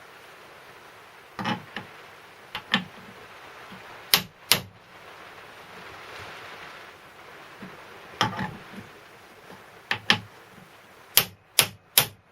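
Hammer striking a drift to drive a ball bearing into the crankcase of a 1935 Stuart Turner N two-stroke marine engine: about a dozen sharp taps in pairs and small groups with pauses between. The bearing is a tight push fit, so it needs repeated blows to go home.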